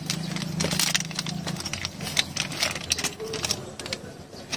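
Thin plastic zip-lock bag crinkling and rustling as hands open it and pull out a plastic action-camera mount, in quick, irregular clicks and crackles. A steady low hum runs underneath and stops about a second and a half in.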